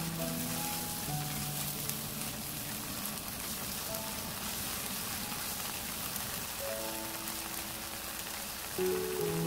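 Shrimp, spinach and corn frying in oil in a pan, a steady crackling sizzle, with light background music over it.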